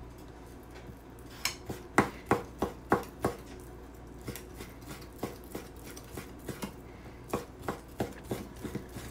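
Kitchen knife chopping raw beef into very small pieces on a wooden cutting board: an irregular run of sharp knocks, about two or three a second, starting about a second and a half in.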